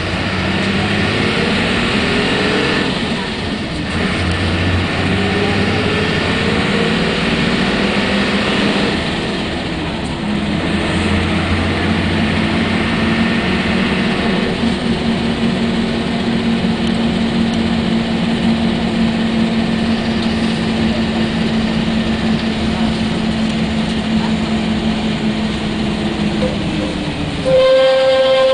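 SOR B 9.5 bus's diesel engine pulling away, its pitch climbing through two gears with a drop at each change, then running steadily at cruising speed. Near the end a louder steady tone cuts in.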